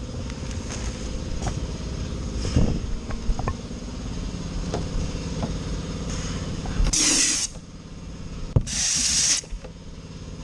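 A machine runs steadily with light ticking. About seven and again about nine seconds in come two short, loud hisses of compressed air from the dry ice blasting gun. The running sound is lower after the first hiss.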